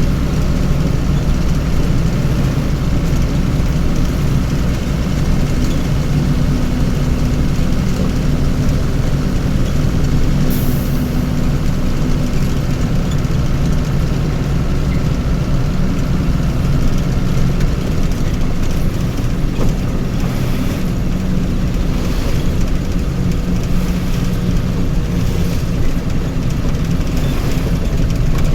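A heavy vehicle's engine running steadily, a low even drone with no revving.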